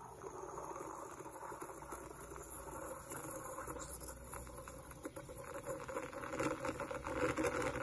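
Steam wand of a Mattinata Serein espresso machine frothing cold milk in a cup: a steady hiss with dense crackling and spluttering as the steam is driven into the milk.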